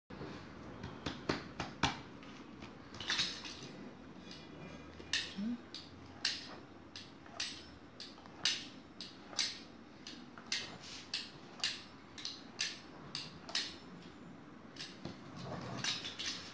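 Knife blade cutting down through soft chocolate dough and striking a wooden cutting board, repeated sharp knocks at one or two a second as strips are cut side by side.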